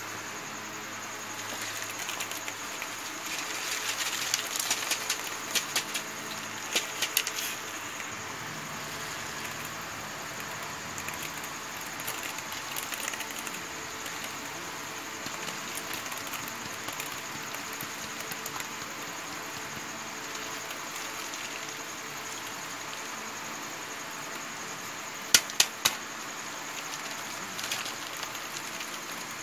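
Hands handling dried ridge gourd pods and loose seeds on a woven plastic sack: rustling with scattered sharp clicks and taps over a steady hiss. There is a run of clicks about 4 to 7 seconds in and a few louder sharp clicks near the end.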